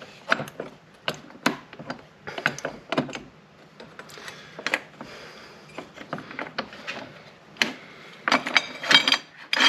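Handling noise at a wood lathe: a wooden block with a bolt through it bumped and turned over against the lathe's tool rest and bed, giving scattered clicks and knocks. A quicker run of clattering, slightly ringing knocks comes near the end.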